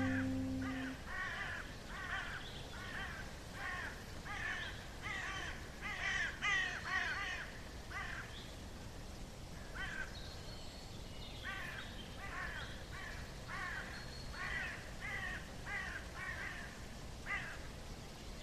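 Crows cawing: a long run of short, harsh calls about two a second, in two bouts with a pause of a couple of seconds between them, as the last notes of a piece of music fade away at the start.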